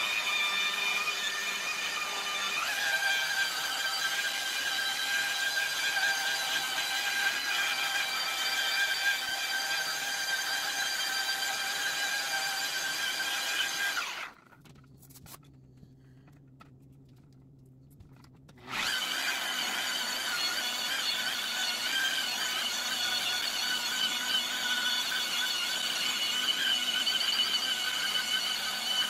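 Electric rotary polisher running steadily with a whine as its foam pad buffs sanded plexiglass to a clear finish; the pitch steps up slightly about three seconds in. The sound drops out for about four seconds midway, then the polisher runs again.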